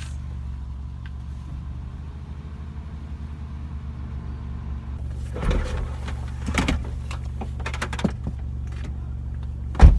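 Vehicle engine idling with a steady low hum, broken by a few knocks and clunks past the middle and one loud thump near the end.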